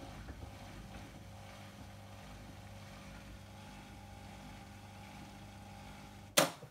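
Miele washing machine running with a steady low hum during its TwinDos flush cycle, with a higher tone joining about halfway through. Near the end comes one sharp, loud knock.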